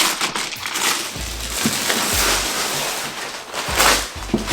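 Packaging paper rustling and crinkling as a gift parcel is opened by hand, with a few dull bumps from handling the box.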